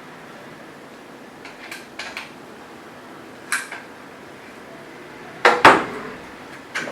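Allen key and metal cane fittings clinking and knocking as the fixture holding the shaft in the quad-pod base is tightened: a few light scattered clicks, then two louder knocks near the end.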